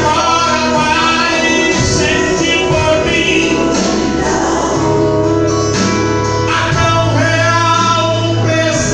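Gospel worship song: voices singing a melody over instrumental backing with long held bass notes.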